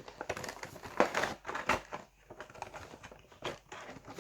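Plastic packaging insert and cardboard box crackling and clicking in irregular bursts as Funko Pop vinyl figures are pushed back into their box.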